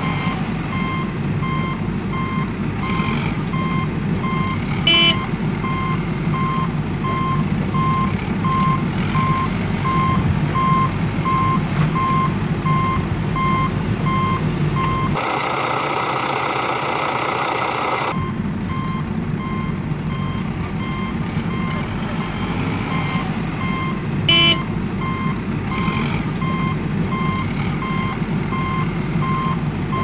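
A vehicle's reversing alarm beeping steadily, about two beeps a second, over a low engine rumble, as of a backhoe loader at work. A little past the middle the beeping and rumble break off for about three seconds while a different, buzzier sound plays. Two short sharp sounds come about five seconds in and near the end.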